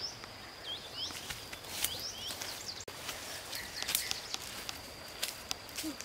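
Forest ambience: small birds chirping in short rising-and-falling notes over a steady high-pitched insect drone, with scattered sharp clicks.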